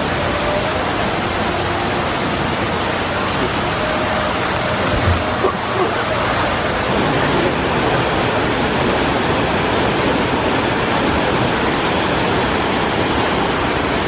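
Steady rush of water pouring down a waterslide and cascading over a rock face into a pool, like a small waterfall. A couple of brief low knocks about five seconds in.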